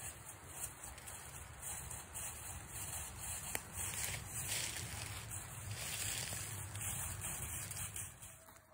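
Rustling and wind noise on a handheld phone's microphone, with a low rumble and a few faint clicks; it drops away sharply near the end.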